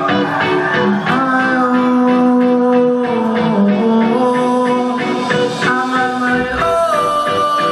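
Live band music: the instrumental intro of a reggae song, with long held melodic notes stepping from pitch to pitch over a regular beat.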